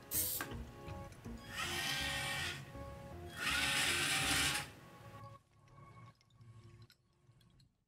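Background music with two bursts, each about a second long, of the robot's small DC gearmotors whirring as it drives and spins. Everything fades out after about five seconds.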